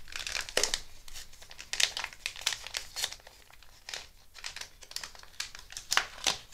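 Clear plastic packaging bag crinkling on and off as hands handle it, with a sharp crackle every so often.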